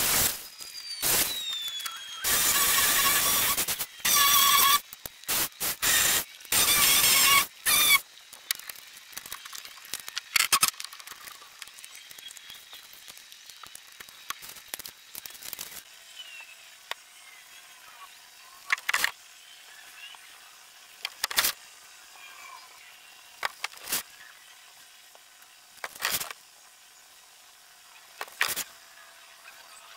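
Construction work on a timber frame: several loud bursts of a hand-held power tool, each about a second long, in the first eight seconds, then scattered single sharp knocks.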